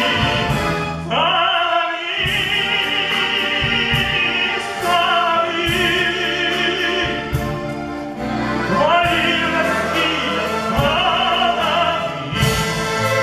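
A song in classical operatic style: a man's voice holding long notes with vibrato over orchestral accompaniment.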